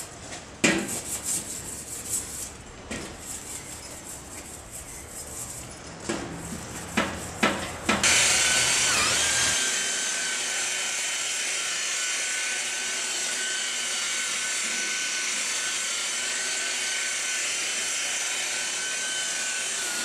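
Hand rubbing on a painted steel panel with a few light knocks, then about eight seconds in an electric polisher with a foam pad starts and runs steadily with a high whine, buffing the panel.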